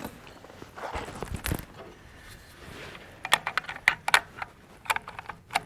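Small hard objects being handled at a shooting bench: a dull thump about a second and a half in, then from about three seconds in a run of sharp, irregular metallic clicks and clinks, like cartridges and gear being picked up and set down.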